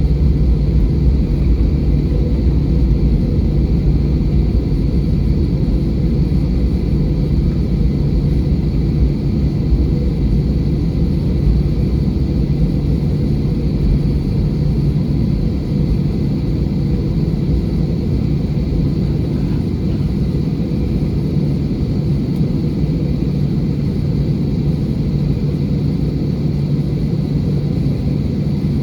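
Airbus A320 cabin noise from a window seat: the engines and airflow make a steady drone with a deep rumble and a constant low hum, easing off slightly toward the end.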